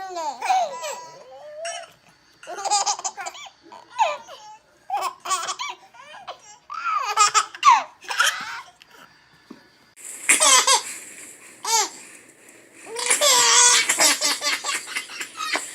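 A baby laughing in a string of short high-pitched bursts with brief gaps between them.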